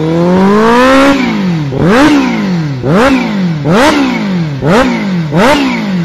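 Kawasaki Ninja H2's supercharged 998 cc inline-four revved with the bike standing still: the revs climb slowly over the first second, then the throttle is blipped about once a second, each rev jumping up sharply and falling back.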